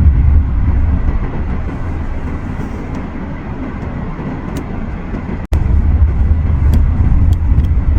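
Car cabin noise while driving: a steady low rumble of engine and tyres on the road. The rumble eases in the middle, cuts out for an instant about five and a half seconds in, and comes back louder.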